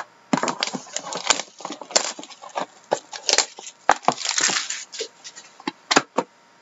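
Plastic shrink wrap crinkling and tearing as it is taken off a sealed Panini Playbook hockey card box, with sharp taps of the cardboard box being handled on a wooden desk. The crackle is irregular, with a thicker run of it about four seconds in.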